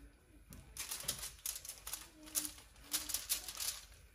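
Aluminium foil crinkling and a disposable plastic glove rustling as raw chicken legs are set down on a foil-lined baking tray: a quick, irregular run of short crackles.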